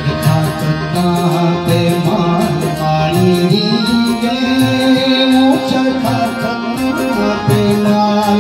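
A man singing a Pahari sad folk song (dukhi mahiya) in long held notes over instrumental accompaniment with a steady drum beat. The voice steps up to a higher held note about three seconds in.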